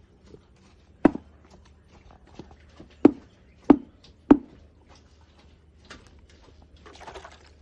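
Four separate knocks or thuds, one about a second in and three more close together a little later, among faint scattered clicks.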